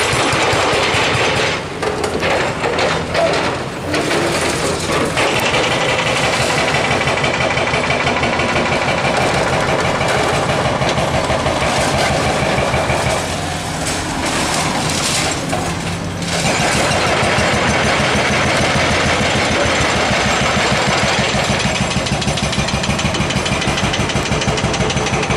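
Hydraulic breaker on a demolition excavator hammering concrete in a fast, steady rattle over the diesel engines running. It pauses briefly near the start and again about halfway through.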